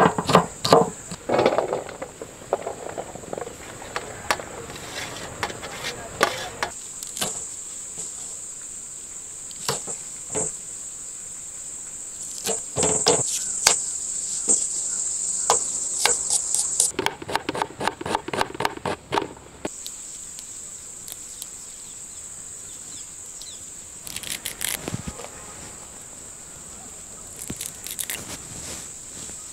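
Crickets and other insects chirring in a steady high-pitched drone, with a knife chopping vegetables on a cutting board in runs of quick strokes. The chopping is busiest at the start and again a little past the middle. The insect drone drops out for a few seconds after the middle.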